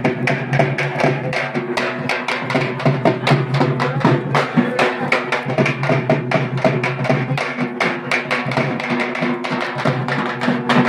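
Music driven by fast, dense drumming, with steady low tones underneath.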